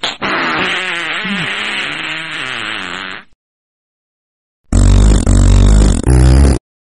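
Two recorded fart sound effects separated by a pause. The first is long and wavering in pitch, about three seconds. The second is louder and deeper, about two seconds, broken into two parts.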